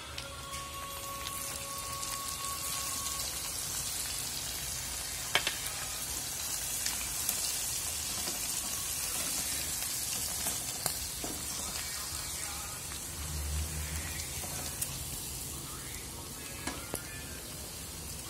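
Dried anchovies (dilis) and sliced red chillies deep-frying in hot oil: a steady, high-pitched crackling sizzle that grows louder about a second in. A wooden spatula stirs through it, with a few sharp knocks against the pan.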